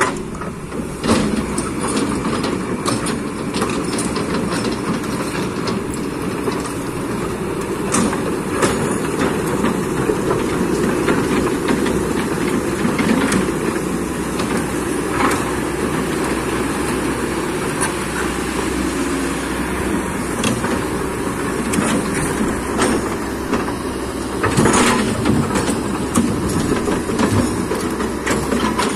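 Kobelco hydraulic excavator's diesel engine running steadily under work, with frequent short knocks and clanks of metal and rock scattered through it.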